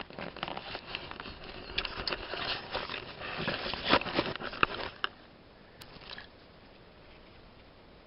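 Dry pine needles, twigs and forest litter rustling and crackling under hands, with sharp handling clicks, for about five seconds.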